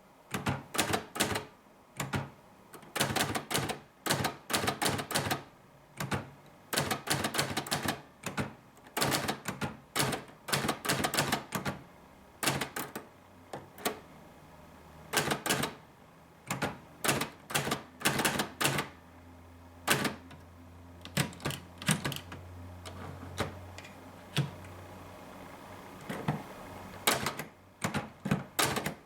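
Hermes Media 3 manual typewriter being typed on, keys striking in quick runs of clicks broken by short pauses.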